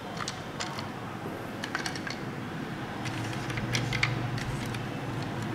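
Hard plastic toy trucks clicking and knocking against each other and the table as a hand picks them up and moves them: a scattering of light clicks, busiest in the second half, with a low steady hum setting in about three seconds in.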